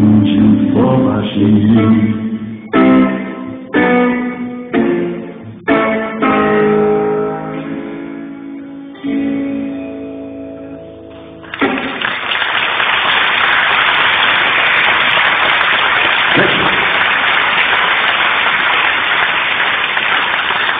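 Electric guitar playing a run of closing chords, each struck hard and left to ring and fade, the last dying away about eleven seconds in. The audience then breaks into steady applause that fills the rest.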